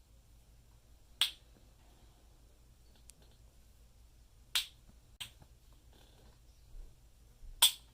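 Four sharp, short clacks at uneven intervals, the last the loudest.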